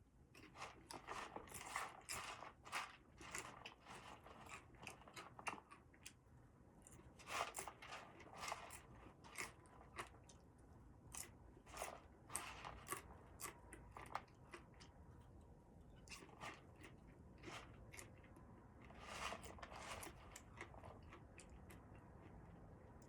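A person chewing crunchy food, in runs of crackling crunches with short pauses between them. The crunching thins out in the last few seconds.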